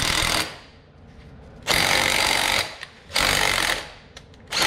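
Small impact wrench run in short bursts, driving an M12 x 1.75 bolt in and out of a rusty, dirt-filled bolt hole in a pinion companion flange to clean the threads. One burst stops about half a second in, two more of about a second each follow, and another starts near the end.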